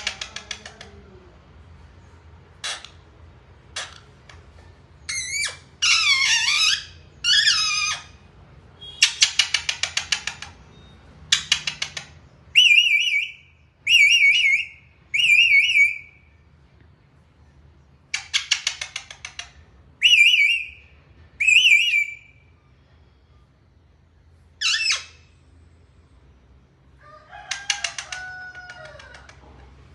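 Indian ringneck parrot calling in a string of short bouts: harsh rapid chattering trills mixed with warbling whistles, separated by brief pauses.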